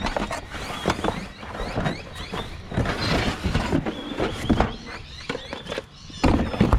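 Junk being rummaged through and shifted by hand: irregular knocks, clunks and scrapes of plastic and cardboard items, with a louder cluster of clunks near the end.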